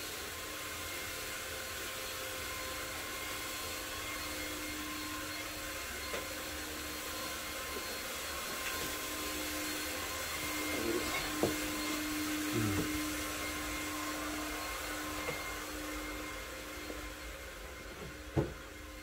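Steady machine whir and hiss with a held hum tone: the background drone of a supermarket's machinery. A few short knocks come around the middle and near the end.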